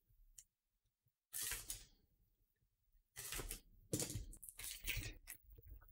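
Box cutter slicing the cellophane shrink wrap on a sealed card box, with the plastic crinkling. There is a short scrape about a second in, then a run of scrapes and rustles from about three seconds in.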